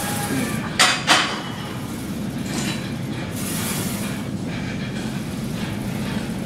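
Two sharp metallic clanks from a plate-loaded leg press machine, its iron weight plates and sled knocking, about a second in and a third of a second apart, over a steady low noise.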